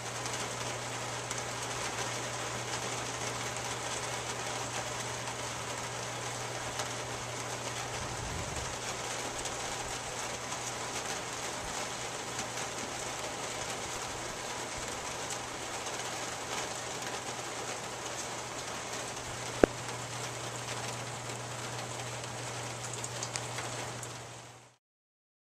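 Steady rain falling outdoors, an even hiss with a low steady hum beneath it. There is a single sharp click about twenty seconds in, and the sound cuts off suddenly near the end.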